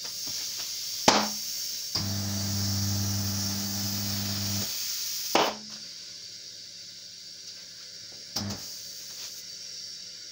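Compressed air hissing into a light-truck tyre through the chuck of a dial inflator gauge on the valve, loudest for the first half and then quieter. Three sharp pops cut through it, the first about a second in, and a low hum runs for a couple of seconds in the middle.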